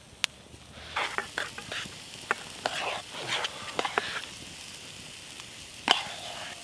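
Mashed potato being scraped and knocked out of a metal camping mug onto a metal plate: a run of soft scrapes and clicks, then a sharper click near the end. A steady hiss of the campfire, with a steak grilling over it, runs behind.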